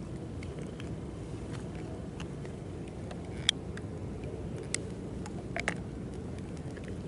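Steady low background noise with a few sharp clicks, the loudest about three and a half seconds in and two more near the end.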